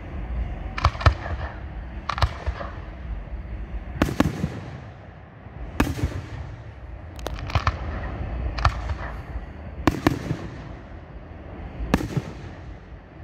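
Aerial firework shells bursting overhead: about a dozen sharp reports, one every second or two. The bigger reports are followed by a rolling echo that dies away.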